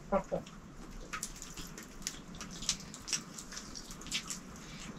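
Soft, wet mouth clicks and smacks of someone chewing food, irregular, a few a second.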